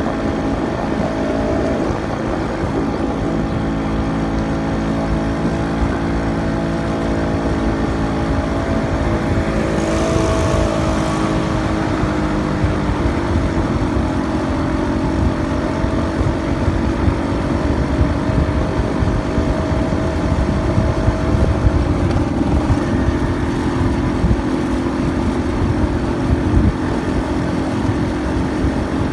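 Motorcycle engine running steadily while riding along, with a low road and wind rumble underneath; its pitch shifts slightly a couple of times.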